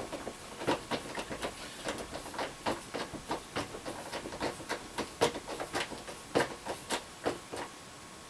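Quick, irregular clicks and taps, about three a second, from a hand tool working at the thin plastic wall of a shower stall. They stop shortly before the end.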